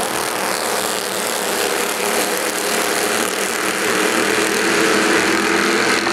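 A pack of Bandolero race cars running around the oval, the small Briggs & Stratton single-cylinder engines of the field heard together as a steady engine noise.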